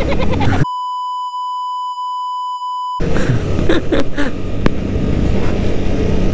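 A steady electronic censor bleep of about two seconds, starting just under a second in, that blanks out all other sound while it lasts. Before and after it comes the running noise of a motorcycle ride at speed: engine and wind.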